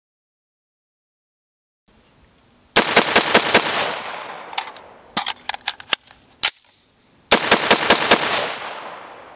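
AR-15-style rifle firing two rapid strings of about eight and seven shots, each trailing off in a long echo. Between them come a handful of separate sharp metallic clicks from the rifle being handled, as in a magazine change.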